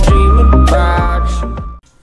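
Intro music with deep bass and held notes that fades out and stops near the end.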